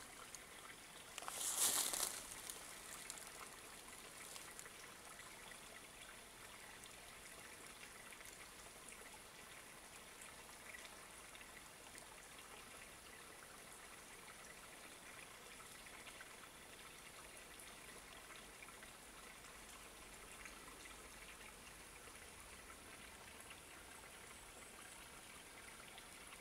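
Faint, steady background hiss of forest ambience, with a brief rustling noise about a second and a half in that is the loudest sound.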